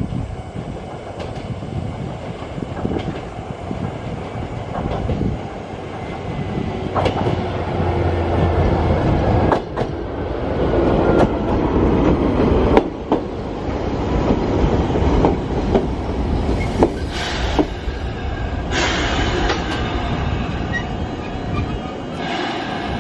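Chichibu Railway 7000 series electric train (ex-Tokyu 8500 series) pulling into a station. Its wheels clack over the rail joints, growing louder as the cars pass close by, then it slows to a stop with stretches of hiss in the last few seconds.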